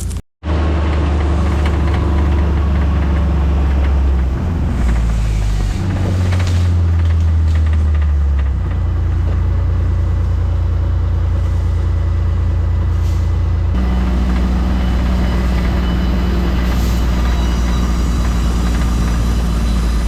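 Heavy work truck's diesel engine running steadily, cut together from several clips, so the rumble changes abruptly a few times; it drops out for a moment just after the start.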